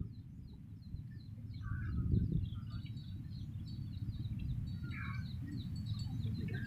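Small birds chirping in quick, repeated high notes, with a few lower calls, over a steady low rumble.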